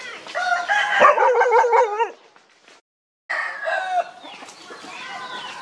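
Rooster crowing: one long wavering call, then after a brief silence a shorter call.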